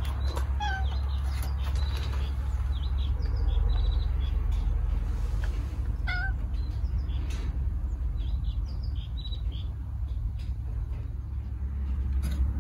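Domestic cat meowing twice, short calls about half a second in and about six seconds in, over a steady low rumble.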